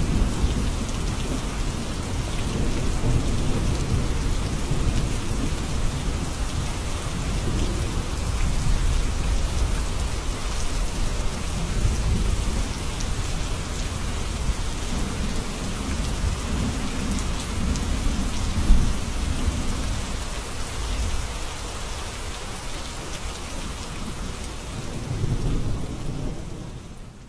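Steady heavy rain with low rolling rumbles of thunder and one sudden sharper crack partway through; the sound fades out at the very end.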